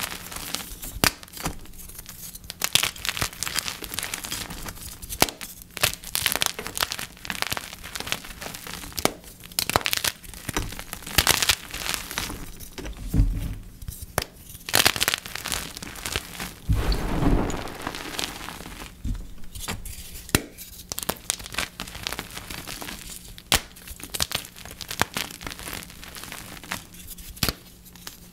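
Dip-dyed gym chalk blocks being crushed: a dense, irregular run of dry crunching and crackling, with two deeper, heavier crunches near the middle.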